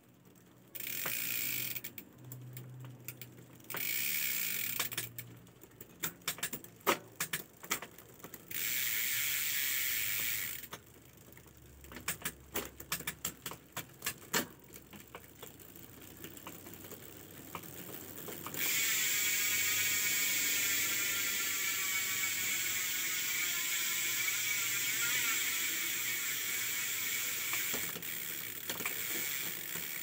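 Tanke TH240 rear hub's six-pawl freehub ratcheting as the wheel freewheels, the pawls clicking over the ratchet ring. Short stretches of fast, steady buzzing alternate with slower separate clicks. About two-thirds of the way in it settles into a long, unbroken buzz.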